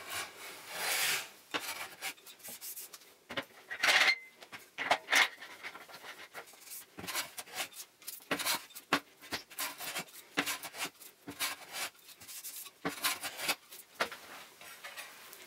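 Hand plane taking fine passes across the top of a wooden frame, a run of irregular rasping strokes, some longer and some short. The passes level a corner that sits higher than the rest.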